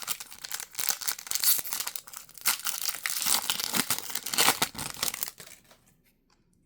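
Foil wrapper of a Pokémon TCG booster pack crinkling and tearing as it is handled and ripped open, with scattered sharp crackles; it stops about five and a half seconds in.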